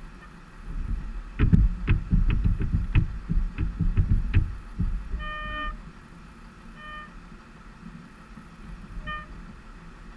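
Harley-Davidson Softail's V-twin engine idling while stopped, a low uneven rumble with a spell of louder thumping from about a second and a half in to nearly five seconds. Short high-pitched beeps sound three times in the second half.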